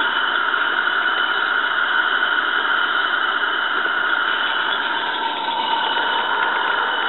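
A live steam model locomotive, a 16mm-scale Roundhouse Fowler, running past with a snowplough: a loud, steady hiss of steam and exhaust.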